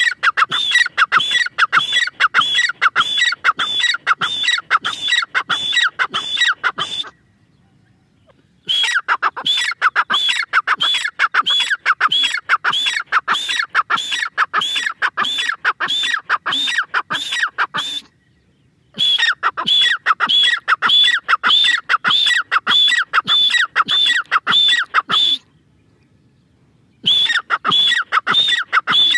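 Grey francolin calling: a long series of repeated notes, about three a second, broken by short pauses three times.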